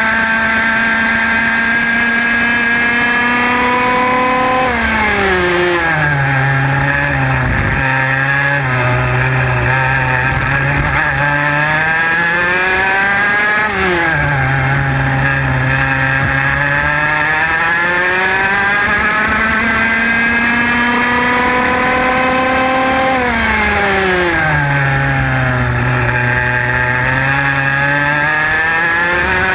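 IAME X30 125cc two-stroke kart engine heard onboard at racing speed. Its pitch drops sharply three times as the driver lifts off into corners, then climbs steadily back under full throttle along the straights.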